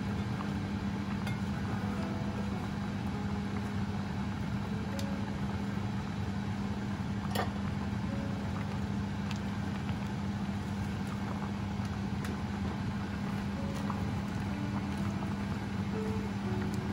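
A steady low mechanical hum, with soft background music notes over it. There is a sharp click about seven seconds in and a few fainter clicks elsewhere.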